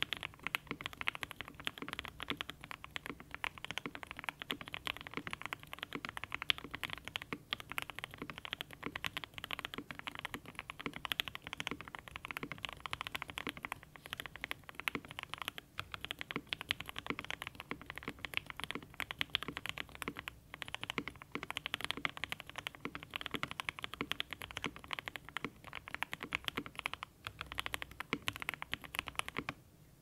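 Continuous fast typing on a Satisfaction 75 custom mechanical keyboard with Everglide Aqua King V3 linear switches, an FR4 plate and cherry-profile ABS keycaps, foam- and tape-modded: a dense run of clacking keystrokes with a few short breaks.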